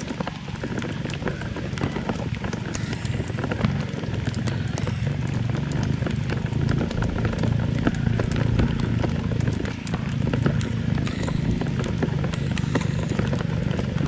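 Rain falling, with many small drop hits pattering throughout over a steady low rumble.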